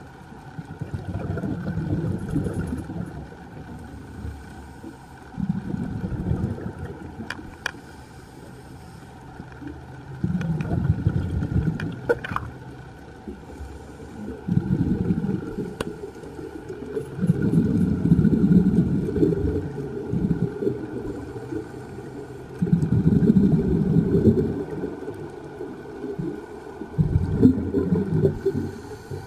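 A scuba diver's exhaled bubbles leaving the regulator, heard underwater: a gurgling rumble in about seven bursts of a couple of seconds each, one for each breath, a few seconds apart, over a faint steady hum.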